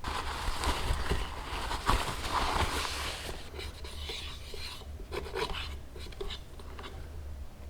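Something rubbed or scrubbed against a hard surface for about three seconds, then a few light clicks and knocks from handling kitchen items.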